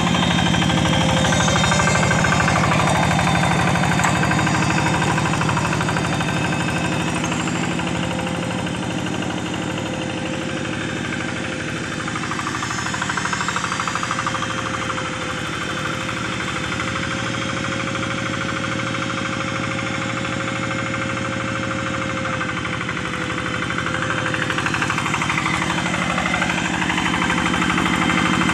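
Single-cylinder diesel engine of a two-wheel hand tractor running steadily under load as it ploughs a flooded rice paddy, a rapid even chugging. It grows fainter through the middle as the tractor moves away and louder again near the end as it comes back close.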